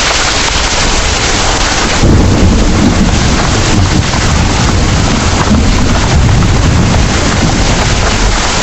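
Heavy rain pouring steadily, with a deep, rolling rumble of thunder that swells in about two seconds in and carries on.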